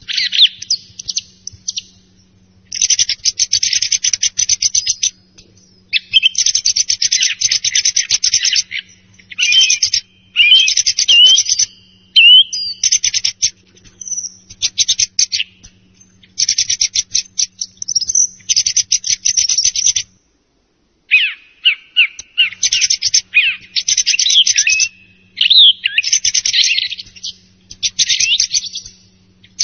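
Song thrush singing: loud phrases of rapid, varied notes, each lasting one to three seconds, with short pauses between them and a longer break about twenty seconds in.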